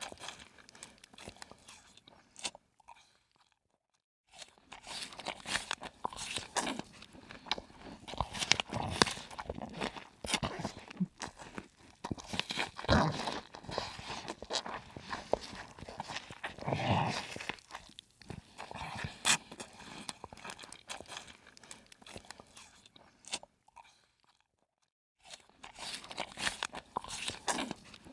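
Irregular crunching and chewing, as of something eating crunchy food, twice broken by a second or so of silence.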